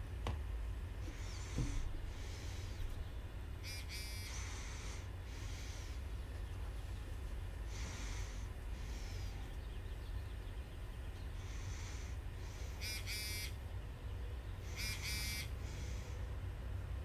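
A person breathing softly through the nose close to a microphone, a puff every few seconds, over a low steady hum. A few short clicking bursts stand out around four seconds in and twice near the end.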